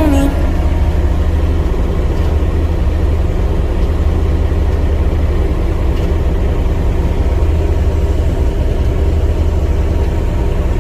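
Heavy diesel engine of construction equipment running steadily at a low, even drone.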